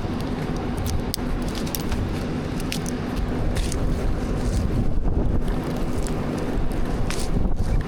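Diesel engine of a Merlo crane running steadily, with scattered sharp cracks and snaps over it.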